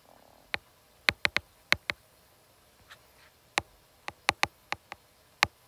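Stylus tip tapping and clicking against a tablet's glass screen while drawing arrows: about a dozen sharp ticks in irregular clusters.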